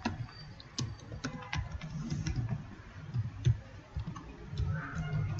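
Typing on a computer keyboard: irregular key clicks over a low background rumble.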